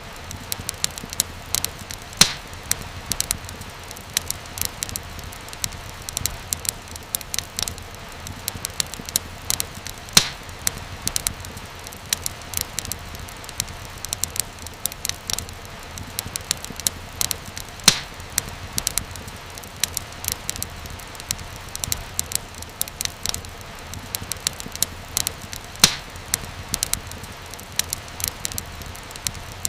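Wood fire crackling in a fireplace: a dense run of small snaps and clicks over a low steady hiss, with a few louder pops about every eight seconds.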